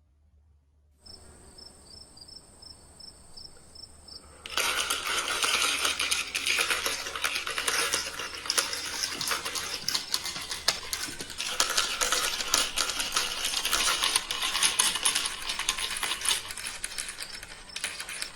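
Glass marbles rolling and clattering down plastic marble-run rails, a dense stream of clicks and rattles that starts suddenly about four seconds in. Under it, a background of cricket chirping with a steady high ringing tone begins after about a second.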